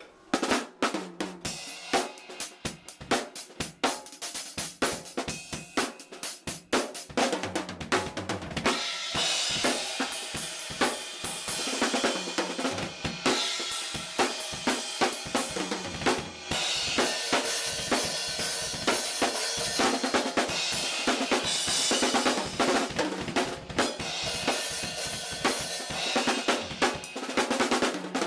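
Acoustic drum kit being played, picked up by a pocket camcorder's built-in microphone: rapid snare and bass drum strokes with hi-hat, then from about nine seconds in a heavier wash of cymbals over the beat.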